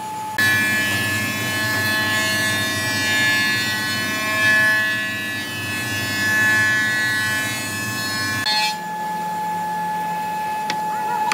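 Small electric power tool working wood, its motor running with a steady whine. About eight seconds in the sound switches abruptly to a single steadier tone.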